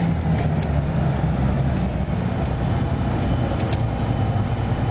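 Detroit Diesel 6V92TA two-stroke V6 diesel of a 1995 Nova Bus Classic running steadily as the bus drives along, heard from inside the cabin. A couple of short sharp clicks of cabin rattle, about half a second in and near the end.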